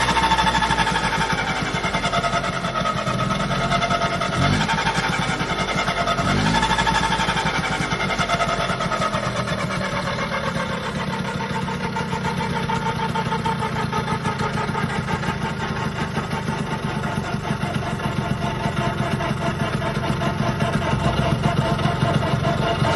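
Vespa scooter's two-stroke rotary-valve engine running, blipped up briefly twice in the first seven seconds, then held at a steady speed. It carries an unusual noise, new this season, that the owner cannot place and suspects may be a crankshaft bearing or the rotary valve.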